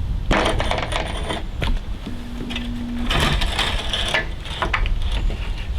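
Metal parts of a precast concrete form clanking and rattling as the form is put back together, in two bursts about a second long each with a few shorter knocks between, over a steady low rumble.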